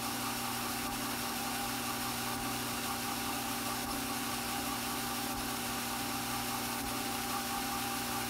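The electric motor of a Strauch Mad Batt'r drum carder running at a steady speed, a constant hum.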